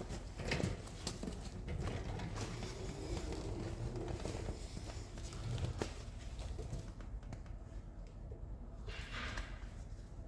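Scattered knocks and clicks of hand tools against metal parts during work on a car's rear hub, over a low background rumble.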